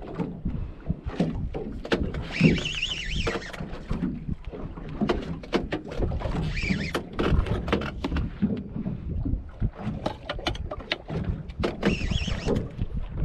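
Sounds aboard a small fishing boat at sea: a steady rumble of wind and water against the hull, with a run of sharp clicks and knocks through the middle and a few short, wavering high tones.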